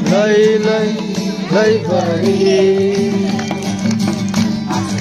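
A Christmas carol in Nepali: a singing voice gliding over a sustained instrumental accompaniment with a steady percussive beat.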